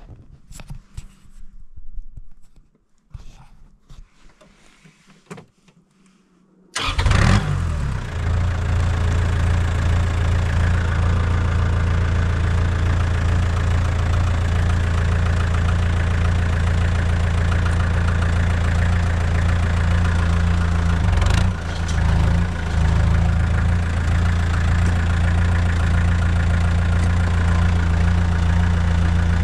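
A few clicks and knocks, then about seven seconds in a tractor's engine cranks, catches and settles into a steady idle, dipping briefly about two-thirds of the way through.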